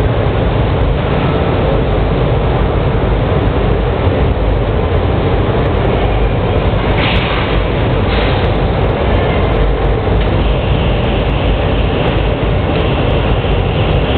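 Steady machinery rumble of a glass-processing line, an automatic glass loader and CNC glass cutting table, with two brief hisses about seven and eight seconds in.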